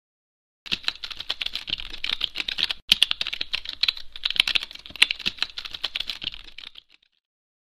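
Fast typing on a laptop keyboard: a rapid, uneven run of key clicks that starts about a second in, breaks off briefly near the middle and stops near the end.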